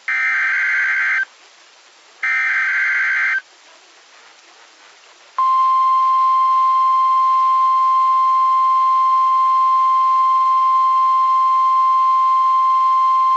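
Emergency Alert System SAME header: two buzzy digital data bursts, each about a second long with a second's gap between them. About five seconds in, the single steady 1050 Hz National Weather Service attention tone starts and holds, the signal that an urgent warning message follows.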